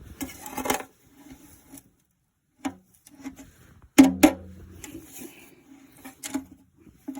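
Handling noises: rustling for the first couple of seconds, then several sharp clicks, the strongest two about four seconds in, with a brief low hum.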